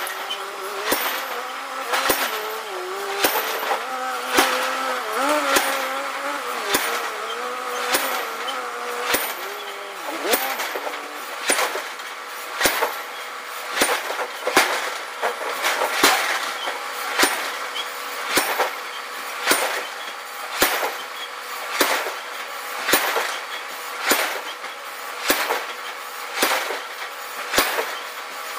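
Power forging hammer striking a red-hot iron block at a steady pace, a little more than one blow a second, over a steady machine hum. A wavering squeal rises and falls through the first ten seconds.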